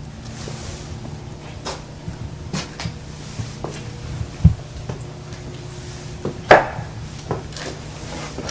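Irregular knocks and clicks, like objects being handled and set down, over a low steady hum. The two loudest knocks come about four and a half and six and a half seconds in.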